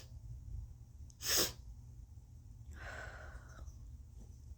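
A woman's short, sharp, forceful burst of breath through the nose about a second in, then a softer breathy exhale, as her nose reacts to turmeric powder.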